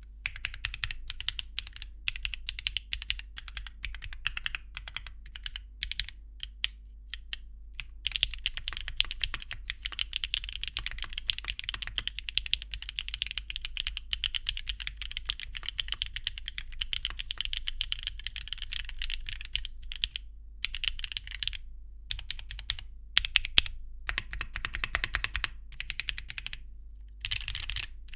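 Typing on a foamless Mode Sonnet 2024 mechanical keyboard with a copper plate, HMX K01 factory-lubed light tactile switches and KeyKobo Vibrato keycaps. The keystrokes come steadily, densest from about eight seconds in to about twenty, then slow down with short pauses and one louder stroke late on.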